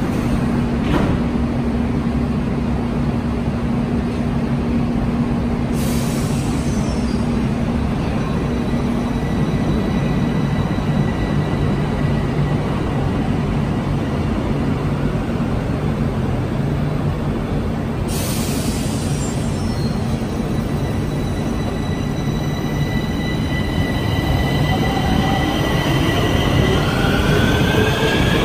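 Bucharest Metro train running at a station, a steady loud rumble with a thin steady whine above it and two short bursts of hiss along the way. Near the end a rising whine sets in as the train picks up speed.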